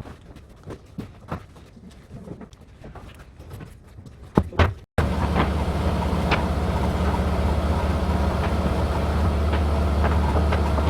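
Faint scattered clicks and handling rustles, then, after a sudden cut about five seconds in, a loud steady low rumble of a vehicle running, heard from inside it.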